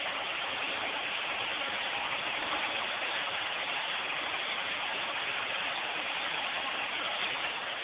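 Vacuum cleaner running steadily, a constant rushing hiss, as it is passed over a dog's coat.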